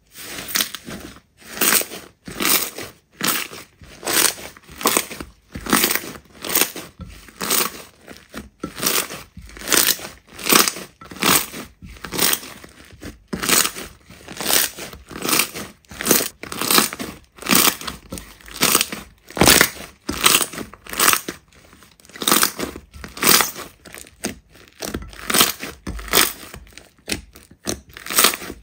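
Slime being squeezed and pressed by hand, a repeated sticky squish about one to two times a second.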